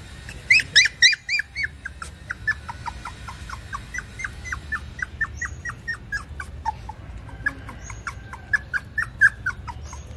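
A young puppy whimpering: a long run of short, high whines, each dropping in pitch, a few a second, loudest near the start and again near the end.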